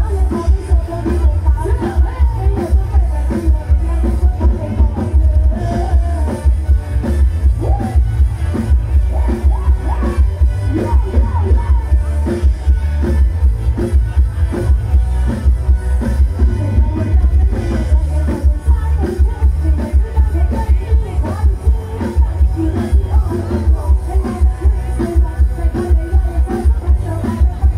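Live band on a Thai mobile stage truck playing loud amplified dance music: a heavy, steady bass beat under electric bass, guitar and keyboard, with a woman singing into a microphone. Crowd noise lies underneath.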